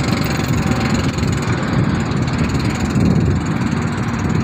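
Wind buffeting an exposed microphone: a steady, fluttering low rumble.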